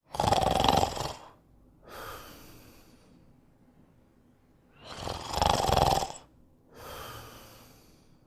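Snoring in sleep: two breath cycles about five seconds apart, each a loud snore lasting about a second followed by a softer breath.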